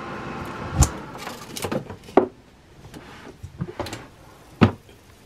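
Clicks and knocks of a CheFavor countertop air fryer being handled: it is unplugged and its door is lifted open. There is a solid knock about a second in, a few lighter clicks, and a sharp clack near the end.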